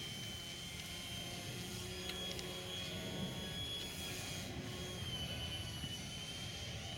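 Aeroworks Su-31 radio-controlled aerobatic model plane flying overhead, its motor and propeller giving a steady high whine that dips slightly in pitch about five seconds in.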